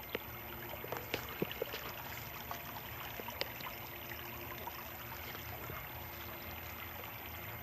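Small creek trickling and running over stones, a steady gentle water sound, with a few small knocks in the first couple of seconds.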